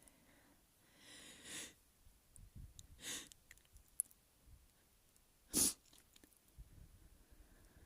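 A person sneezing once, short and loud, about five and a half seconds in, after two breathy intakes of breath.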